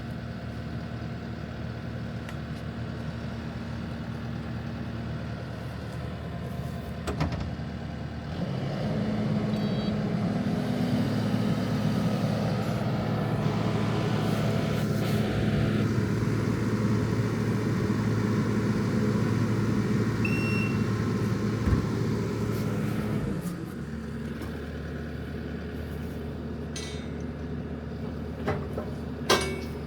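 Heavy vehicle engine running steadily, revved up for about fifteen seconds and then settling back to idle, with a few sharp metallic knocks.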